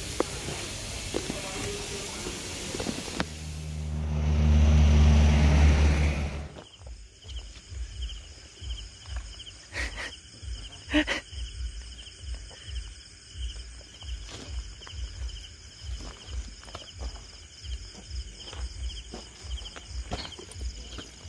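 Night insects chirping in steady pulses, with irregular low thumps of footsteps and handling over them. Before that, a loud low hum lasts about three seconds and then cuts off.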